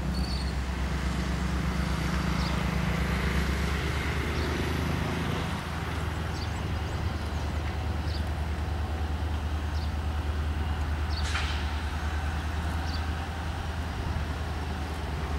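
WDG4 diesel-electric locomotive's EMD two-stroke V16 engine running with a steady low rumble as it draws a passenger train in slowly; a higher engine note fades away about five seconds in. A brief high squeak about eleven seconds in.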